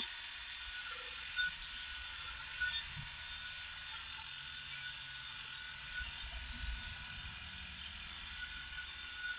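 Electric dog-grooming clippers fitted with an attachment comb, running steadily as they cut through a Kerry Blue terrier's body coat, with a few light knocks.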